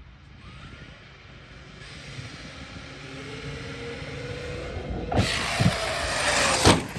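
Brushless RC monster truck at speed: a faint electric motor whine and tyre noise build up, then turn loud about five seconds in, with three heavy thuds, the last and loudest near the end, after which the sound drops away suddenly.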